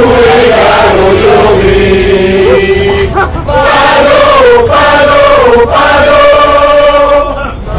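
A crowd of costumed diners singing a drinking song together loudly, many voices in unison on long held notes, with a short break about three seconds in.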